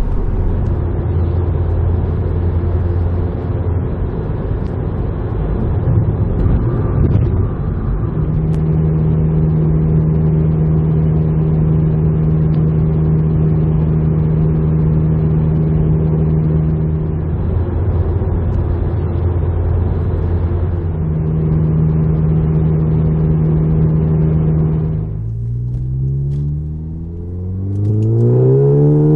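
VW Mk7 GTI's turbocharged 2.0-litre four-cylinder running through an aftermarket cat-back exhaust at a steady highway cruise, a constant engine note. Near the end the sound dips and the revs climb twice under hard acceleration.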